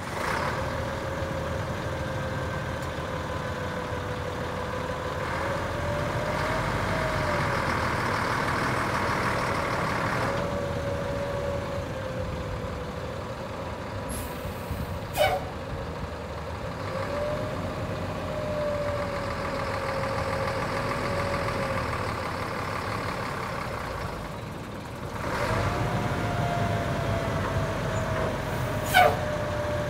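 1989 Ford L-Series picker truck's diesel engine running steadily, with a whine that wavers slightly in pitch over it; the engine gets louder about 25 seconds in, with black smoke from the exhaust stack. Two sharp clicks, one about halfway through and one near the end.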